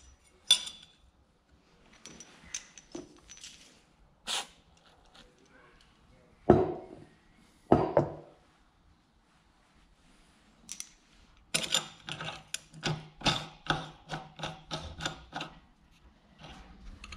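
Steel die parts and a sheet-metal plate clinking and knocking against a bench vise as a homemade dimple die is set up: scattered light clinks, two heavier knocks midway, then a run of quick metallic clicks, about three a second, near the end.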